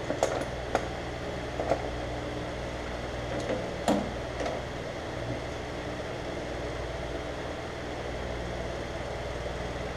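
Steady low machine hum in a workshop, with a few light metal clicks in the first two seconds and a louder clank about four seconds in as tooling is handled on a metal lathe.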